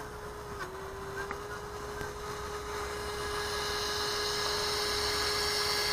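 Electric ducted fans of a small RC F-15 Eagle jet at low taxi power: a steady electric whine with a rising hiss that grows louder toward the end.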